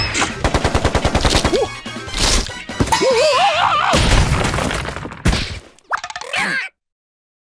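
Cartoon sound effects: a rapid machine-gun-like barrage of sharp hits, about ten a second, as small objects pelt a character. Then comes a wobbling, squealing cartoon voice with crashes as a bunch of grapes tumbles and scatters, and it all cuts off suddenly near the end.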